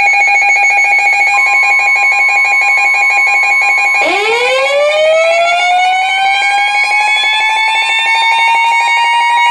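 Electronic emergency alert alarm: a steady pulsing tone with a second, higher tone joining about a second in. From about four seconds a siren-like tone rises slowly in pitch over them.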